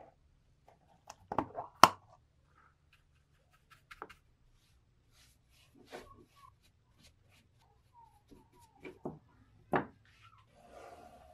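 Close handling sounds of a plastic tub of paste car wax and a paintbrush on a wooden axe handle: scattered sharp clicks and knocks, the loudest about two seconds in and near the end, with faint scratchy brush strokes between them.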